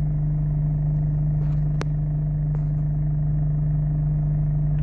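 Steady drone of a car's engine at low revs and its tyres on the road, heard inside the cabin while driving slowly. A single sharp click a little under two seconds in.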